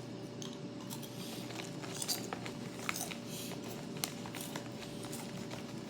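Crunchy barbecue corn snacks being bitten and chewed, with scattered crisp crunches over a faint steady hum.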